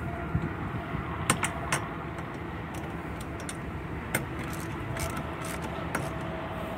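Scattered metal clicks and clinks of two wrenches working a stainless steel bolt and nut as it is tightened on a steel kayak rack bracket. Underneath is a steady low background rumble.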